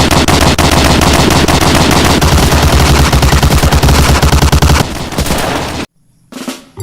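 Rapid automatic machine-gun fire, a fast continuous rattle of shots that stops about five seconds in and trails off into a short silence.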